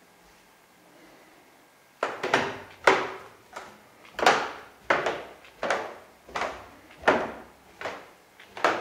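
Treads of a new wooden staircase creaking loudly under each step as someone walks down it. After about two seconds of quiet, a steady run of about ten creaking steps follows, roughly one every 0.7 seconds.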